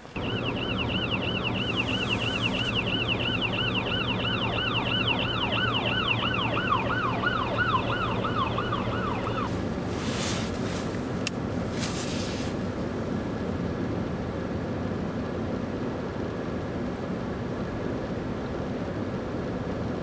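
Emergency vehicle siren in a fast yelp, about three falling sweeps a second, over a steady engine hum. It cuts off about halfway through, followed by a couple of seconds of scraping and a click, then a steady low traffic hum.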